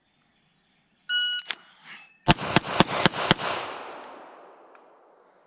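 A shot timer's start beep, then about a second later five rapid shots from a Glock pistol, fired over roughly one second. The echo then fades away slowly.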